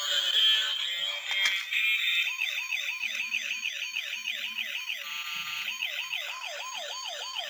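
Electronic siren from a light-up toy: a quick up-and-down sweep repeating about three times a second, with a short break about five seconds in. The siren follows a jumble of electronic music tones at the start.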